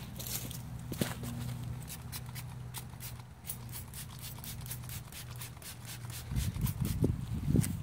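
Light clicks and rubbing from hand-wiping an alloy wheel's spokes with an applicator, over a low steady hum, with a spell of low rumbling near the end.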